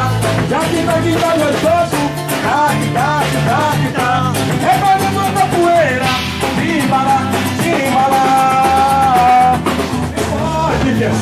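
Live band playing upbeat dance music: a lead melody line with some long held notes over drums, bass and guitar.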